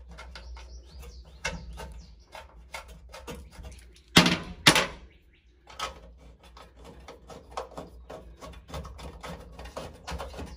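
Irregular metallic clicking and clinking of hand tools and bolts being fitted loosely to hold a VW Beetle body onto its chassis, with two loud sharp clanks about four seconds in.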